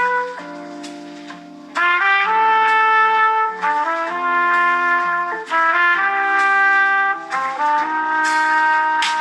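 A Samsung Galaxy S24 Ultra One UI 8.5 ringtone playing: a melody of held notes over chords, changing every half second to a second. It dips quieter for about a second near the start, then comes back in loud.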